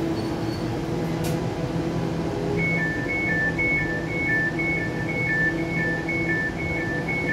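Elizabeth line Class 345 train standing at the platform with a steady electrical hum. About two and a half seconds in, its door warning starts: fast alternating high-low beeps, about four a second, as the doors are released for passengers to alight.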